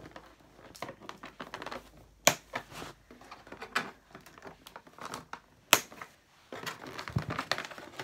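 Plastic packaging being handled, crinkling and rustling with many small clicks, and two sharp snaps, one about two seconds in and one just before six seconds.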